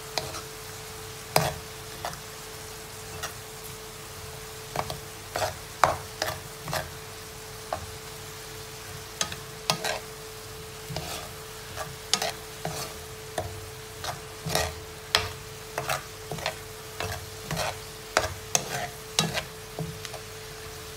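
Sliced mushrooms and onions sizzling in a frying pan while a metal slotted spoon stirs them, scraping and knocking against the pan many times at an irregular pace. A steady hum runs underneath.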